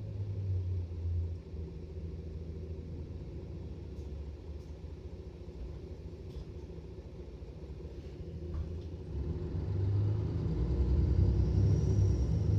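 Mercedes-Benz Citaro bus's OM457 diesel engine running with a low rumble that eases off in the middle, then builds again about ten seconds in as it pulls under load. Near the end a high turbo whine rises over the engine, louder than is normal for these engines.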